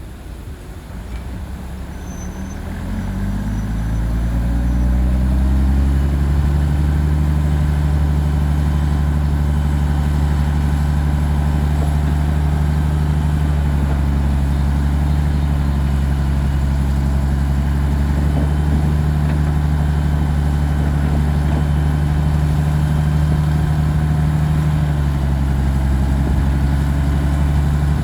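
Bulldozer's diesel engine revving up over the first few seconds, then running steadily at high revs with a deep drone. Its pitch sags slightly near the end.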